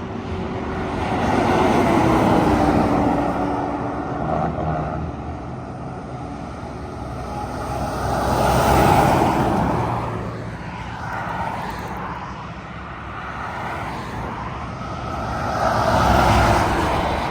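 Highway traffic passing by, swelling loud three times as vehicles go past: about two seconds in, about nine seconds in and near the end. The first pass carries an engine note that falls in pitch as it goes by.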